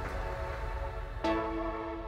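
Soft background music with held chords; a new chord comes in just over a second in.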